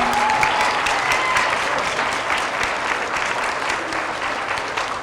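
Audience of schoolchildren clapping after an award winner is announced, dense and steady, slowly thinning out near the end, with a faint whistle or cheer early on.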